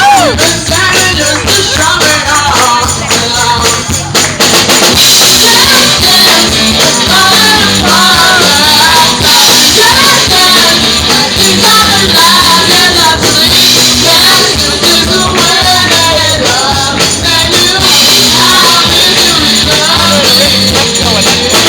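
Live rock band playing a song with singing over a steady beat; a bright, steady high percussion shimmer joins about five seconds in.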